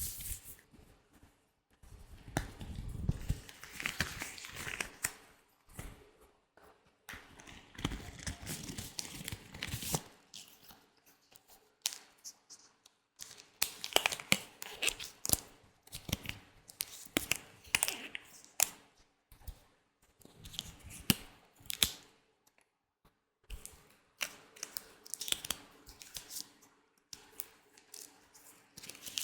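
Latex gloves rubbed and crinkled close to the microphone as an ASMR trigger, in irregular bursts with sharp clicks and short pauses.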